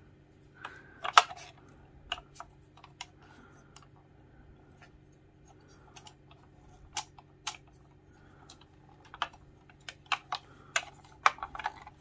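Sharp clicks and small knocks from a diecast John Deere 320E skid steer model as the stiff lift arms are worked by hand. The clicks are scattered, with a loud one about a second in, and come thicker near the end.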